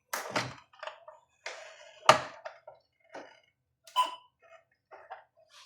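Irregular sharp clicks, snaps and knocks of an old, brittle plastic patient-monitor casing being pried apart, its panel stuck to the rubber seals; the loudest snap comes about two seconds in.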